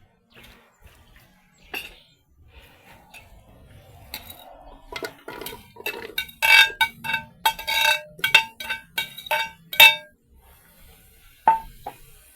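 Repeated clinks of a utensil striking a metal pot. Each strike rings at the same few tones. A few light knocks come first, then a quick run of loud clinks in the second half, and one last clink near the end.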